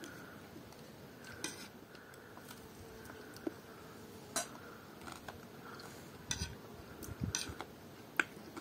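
Metal spoons clinking and scraping against ceramic plates during a meal: a few short, scattered clicks over a faint steady background.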